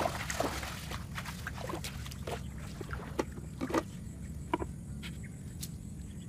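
Feet splashing through shallow paddy water: quick sloshing steps at first, thinning to a few scattered splashes and drips, over a steady low rumble.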